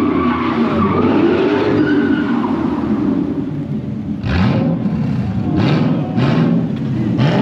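Car engine revving hard while drifting, the pitch swinging up and down, with four sharp high-rev bursts in the second half.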